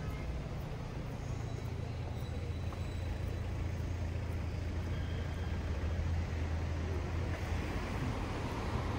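Street traffic: a steady low rumble of passing motor vehicles, growing slightly louder toward the end.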